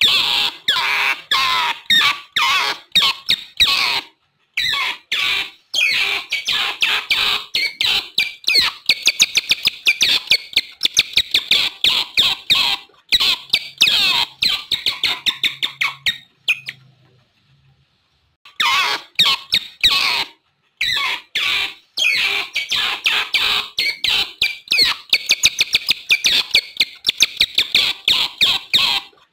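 Otters chirping and squeaking: rapid, high-pitched calls in quick runs of several a second, broken by short gaps and one pause of about two seconds a little past halfway.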